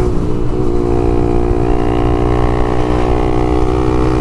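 Honda CBX 250 Twister's single-cylinder four-stroke engine running through an aftermarket LeoVince exhaust, held at a steady engine speed while cruising.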